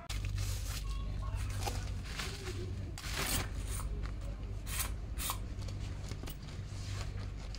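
A steady low hum of the shop interior, with scattered rustling and light clicks as an umbrella is opened and handled.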